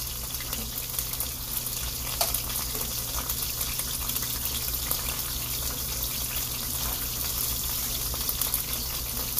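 Beef frying in olive oil in a cast-iron skillet: a steady sizzle with fine crackles. A single light click about two seconds in.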